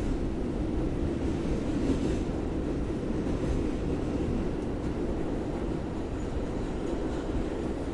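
New York City subway train running, a steady rumble of wheels on track.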